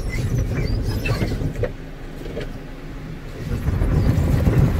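Soft-cloth strips of an Autec automatic car wash scrubbing over the car's windows with water, heard from inside the car as a low rumble with a few soft knocks. It eases a little about two seconds in and swells again near the end.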